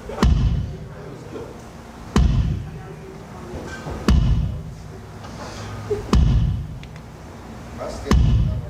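Kick drum struck five times at a slow, even pace, about every two seconds, each a deep thud that dies away within about half a second: a sound check of the kick drum mics.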